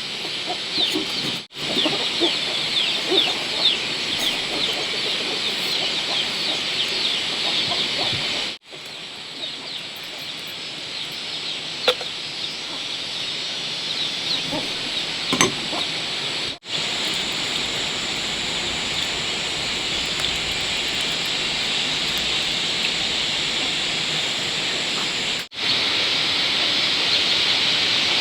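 Farmyard ambience of many chirping birds and clucking chickens over a steady high insect drone, broken four times by a brief gap.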